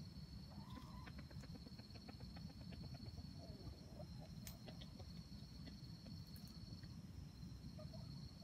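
Red junglefowl (wild chickens) clucking softly: a quick run of low clucks and ticks from about one to four seconds in, with a few scattered calls later. Under them runs a steady, faint, high-pitched drone.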